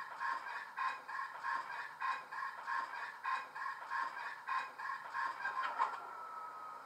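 ESU LokSound decoder playing a Class 40 diesel's failed-start sound through the model's speakers: the engine turns over in a steady pulsing rhythm without catching, then stops near the end with a clunk and a falling whine.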